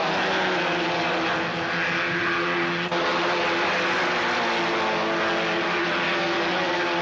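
Several Citroën AX Sport race cars' engines running at high revs, their overlapping pitches gliding up and down as the cars race past. A brief click comes about three seconds in.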